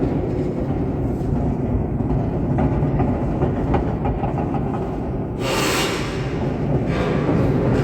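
The observatory's rotating structure turning on its rails: a steady low rumble like a rail car. About five and a half seconds in there is a brief hiss.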